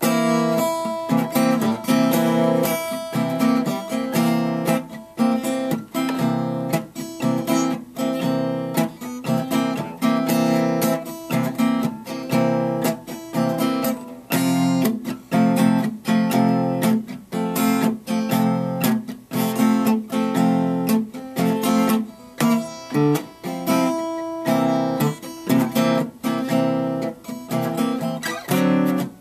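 Steel-string acoustic guitar strummed in a steady rhythmic blues chord pattern, starting abruptly after a moment of quiet.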